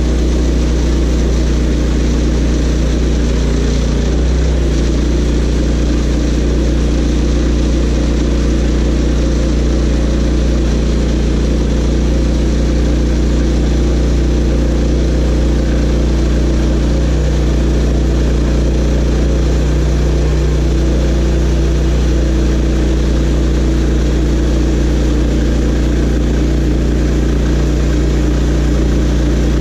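Portable sawmill's gasoline engine running steadily at speed, with no change in pitch or level.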